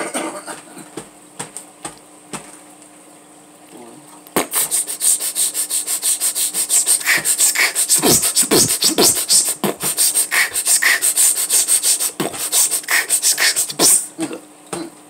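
Hands scratching and rubbing quickly against a bed comforter: a fast, loud run of scratchy strokes that starts about four seconds in and stops shortly before the end.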